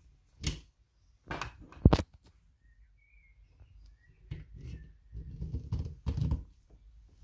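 Hand handling the brass inlet fitting and plastic hose of a single-stage vacuum pump, with the pump switched off. A few sharp clicks and knocks come in the first two seconds, then a spell of rubbing and rustling.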